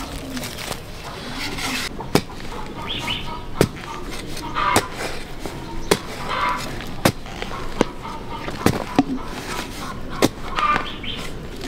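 Chickens clucking, with sharp knocks repeating about every second or so, as of a tool striking.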